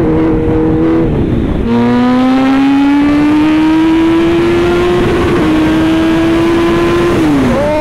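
Superbike engine pulling hard under full throttle while riding. The engine note dips about a second in, then climbs steadily for about five seconds before falling away near the end as the throttle closes.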